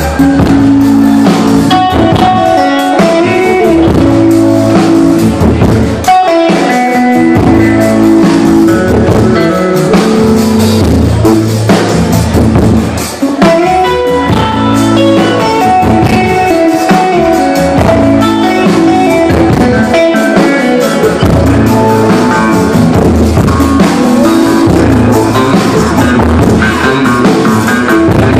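Live rock band playing electric guitars and drums, loud and continuous, with a brief drop in level about halfway through.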